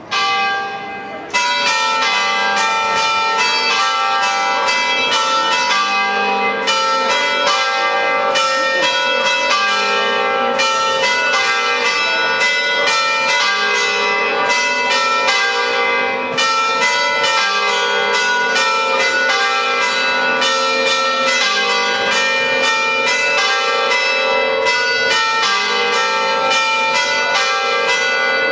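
Church bells ringing in a continuous peal, many quick strikes whose tones overlap and hang on.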